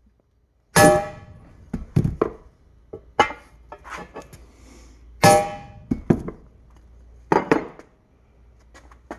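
Hammer blows on a flat steel bar held against the lip of a lower control arm bushing shell, staking the shell into the arm: about five sharp metallic strikes a second or two apart, each ringing briefly, with lighter taps between.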